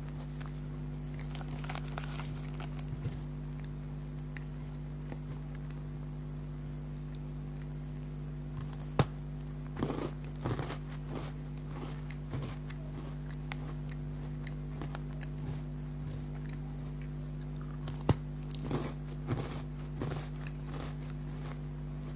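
Close-up eating sounds: scattered bites, crunches and chewing of crunchy chocolate biscuits, with two sharp snaps about nine and eighteen seconds in. A steady low hum runs underneath.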